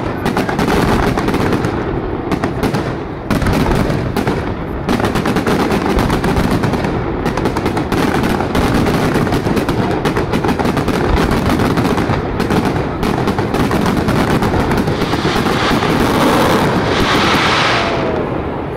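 Fireworks barrage: aerial shells bursting in a rapid, unbroken volley of bangs and crackle, easing off only near the end.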